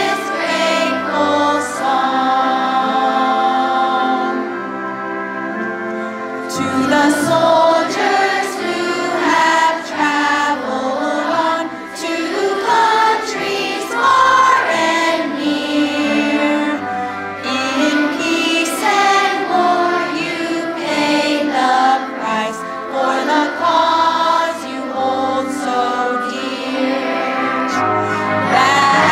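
Children's choir of elementary-school fourth graders singing a song in unison over an instrumental accompaniment.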